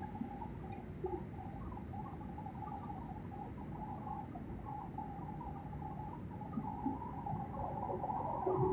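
Airliner cabin noise on the descent to landing: the steady rumble and hiss of engines and airflow heard from a window seat, with a wavering mid-pitched tone over it that grows louder near the end.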